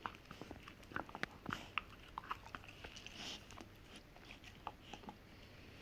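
A Rottweiler gnawing on a hard hoof chew: irregular crunches and clicks of teeth on the hoof, densest in the first two seconds.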